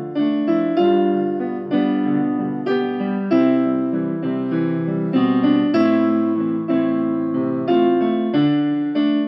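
Slow piano music on a keyboard: soft chords struck about once a second, each left to fade.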